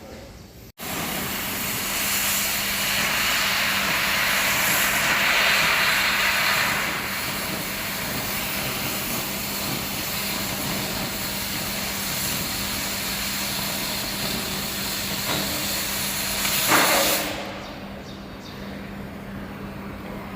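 Fountain firework spraying sparks with a loud, steady hiss that starts suddenly about a second in, followed by one sharp crack about three-quarters of the way through, after which the hiss falls away to a quieter rush.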